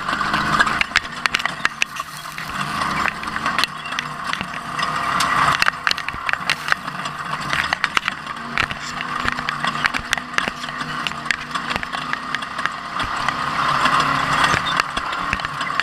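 Ford Ranger off-road race truck running over rough ground: the engine note rises and falls, under constant rattles and sharp knocks from the truck.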